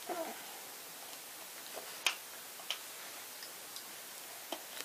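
Quiet room tone with a few scattered small, sharp clicks, three clearer ones about two seconds in, near three seconds and near the end, as children eat chocolate egg shells at a table.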